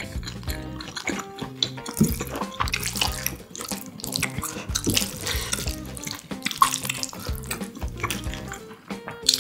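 Close-miked wet chewing of sauce-coated jjapaguri noodles, with sticky noodle and sauce sounds as chopsticks stir and lift noodles from the bowl.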